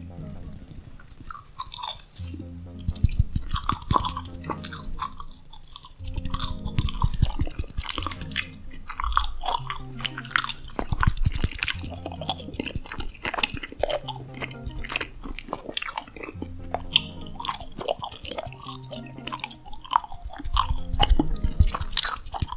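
Close-miked gum chewing: dense wet mouth clicks and smacks, over a soft backing of low sustained music notes.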